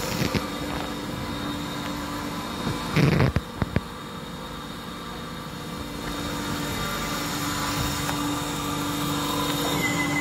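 Wire EDM machine (spark-eroding wire saw) running as it cuts thin brass sheet with a 20 thou wire: a steady mechanical hum with a held tone, and a few loud knocks about three seconds in.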